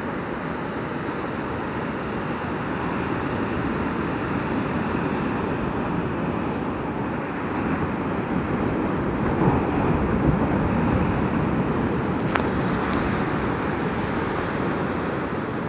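Sea surf washing onto a beach as a steady rush, swelling louder about halfway through, with one brief sharp click about twelve seconds in.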